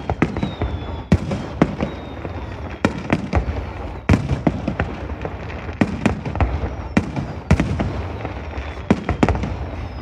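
Aerial fireworks shells bursting in a rapid, uneven series of about a dozen loud bangs, with a low rumble and crackle between them.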